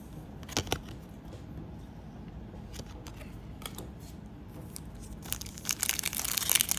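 Plastic wrapper of a trading-card pack crinkling and tearing, starting about five seconds in and getting louder and denser near the end. Before that, only a few faint clicks of cards being handled.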